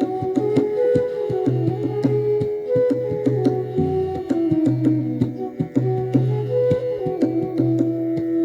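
Indian classical instrumental music: a melody of held notes moving stepwise over a low sustained drone, with tabla strokes throughout.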